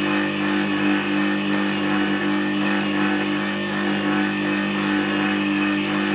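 Record Power WG200 wet stone sharpener running, its motor humming steadily with a faint regular pulse while a bevel-edged chisel is held against the turning water-fed stone to polish its face. The stone has just been dressed with the finer side, which takes the coarseness out and brings the noise right down.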